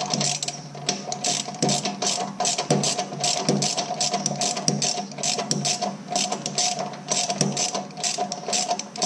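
Socket ratchet wrench clicking in rapid runs as the handle is swung back and forth, loosening a bolt on a lawn tractor's hydrostatic transmission mounting.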